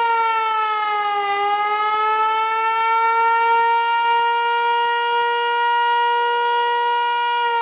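Federal Signal Eclipse 8 electronic outdoor warning siren sounding during a test, its loud tone dipping in pitch about a second in, climbing back up and holding, then starting to fall again near the end.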